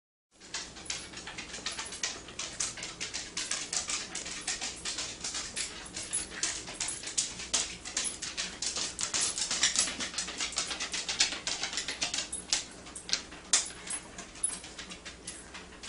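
A basset hound rummaging in dog biscuit packaging: a dense run of quick crackles and crunches, several a second, with a few louder snaps in the second half.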